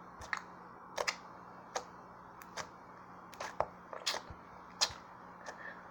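Compound Kings slime being squeezed and folded by hand, giving about a dozen small, sharp clicks and pops at irregular intervals as air pockets in it burst.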